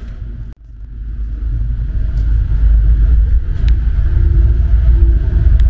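Low engine rumble heard inside a vehicle on a car ferry's deck. It swells over the first two seconds and then holds steady, with a few faint clicks.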